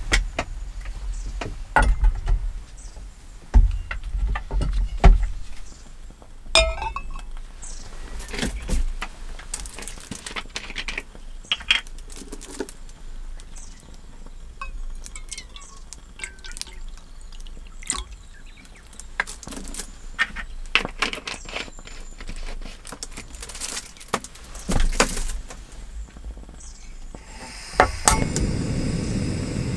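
Stainless steel cup and spoon clinking, with water poured into the cup and scattered knocks of metal on a wooden table. Near the end a gas canister stove lights with a click and burns with a steady hiss.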